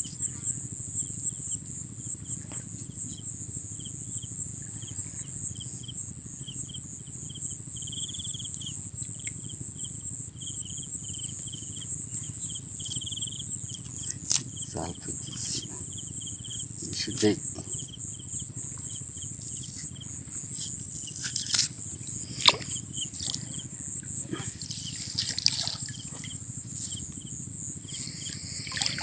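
Steady high-pitched insect drone with a fainter repeated chirping under it, and now and then a light click or rustle as the fishing net is handled.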